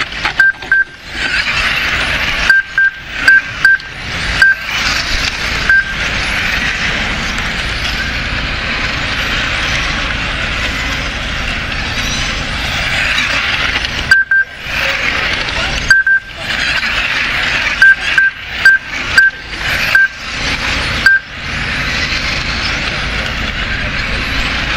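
1/10-scale electric RC touring cars racing: a steady high whine and hiss of their electric motors and tyres on tarmac. Short high beeps cut in singly and in quick runs of three to five, as from the lap-timing system registering cars crossing the line.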